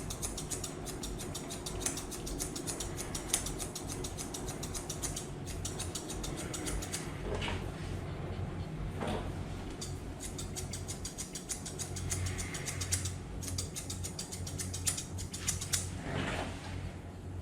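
Grooming scissors snipping a Pomeranian's fur in a rapid, continuous run of small clicks, with a few louder brushing swishes.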